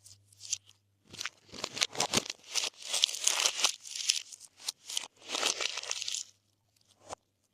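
Glossy slime being mixed by hand: sticky crackling and small pops as it is stretched and squished, in a run of bursts, ending with a single click.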